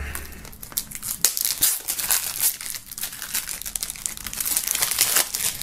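Plastic shrink-wrap film crinkling as it is peeled and pulled off a CD jewel case by hand: a dense run of irregular crackles.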